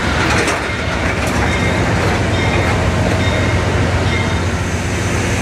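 Amtrak passenger train hauled by two GE Genesis diesel locomotives moving slowly on station track, the engines running steadily, with a few wheel clicks over rail joints in the first second or so.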